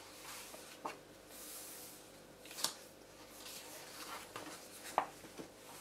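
Colouring book pages being turned by hand: soft paper rustling in swells, with a few sharp flicks of the paper, one at about two and a half seconds and one near the end.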